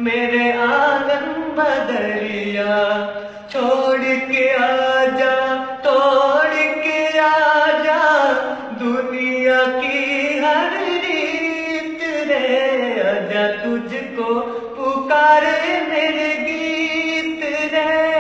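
A man singing a slow Hindi song, holding long wavering notes and sliding through ornamented runs.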